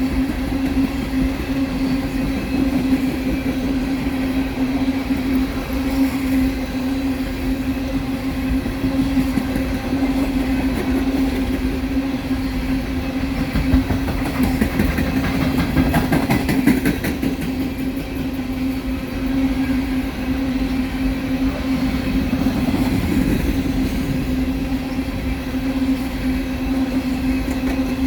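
Empty Norfolk Southern coal train rolling past at speed: a steady rumble and clatter of wheels over the rails, with one steady droning tone. The clatter grows denser for a couple of seconds about two thirds of the way in.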